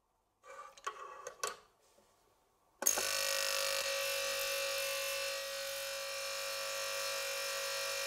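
A few light knocks and clinks, then about three seconds in an ultrasonic cleaner switches on with a sudden steady buzz and hiss as it runs its bath of lighter parts.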